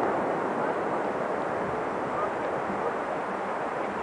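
Steady rushing noise of ocean surf washing on a beach.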